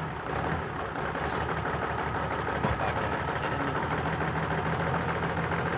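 4x4's engine running steadily at low revs, with a single brief knock about two and a half seconds in.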